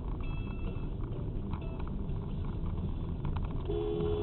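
Steady road and engine rumble of a moving car, as picked up by a dash cam. Near the end a steady two-note tone starts and holds.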